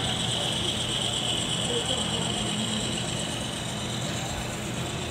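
HO-scale model train rolling along the track: a steady high whirr and fine clatter from its motors and metal wheels on the rails, easing off a little after about three seconds as the cars pass on.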